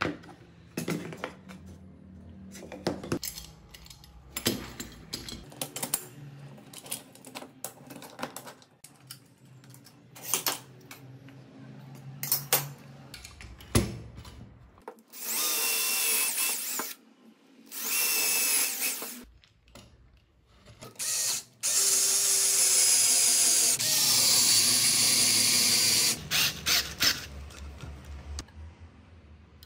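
Power drill running in short bursts into a plywood corner joint, three runs with a whine, the last and longest about four seconds. Before that, knocks and clicks of plywood panels and metal corner clamps being handled.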